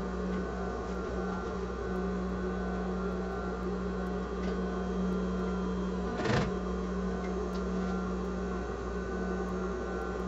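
Sewing machine stitching bias binding onto the edge of a synthetic-fabric piece: the motor runs steadily with a few brief dips, and there is one sharp click about six seconds in.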